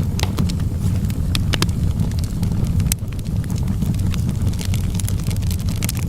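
Wood fire burning in a fireplace: a steady low rumble under frequent, irregular sharp crackles and pops of burning logs.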